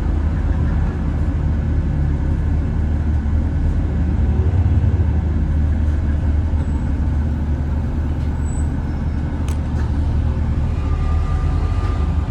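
Bus running with a steady low engine drone and road noise, with a single click about nine and a half seconds in and a faint thin high tone joining near the end. The bus is one that makes an awful metallic sound.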